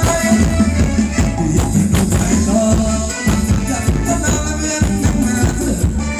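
Live band playing Thai luk thung dance music, loud and amplified, with a heavy bass and a steady, driving beat.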